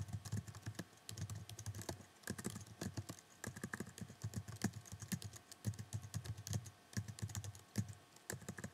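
Typing on a computer keyboard: quick runs of uneven key clicks with short pauses between them.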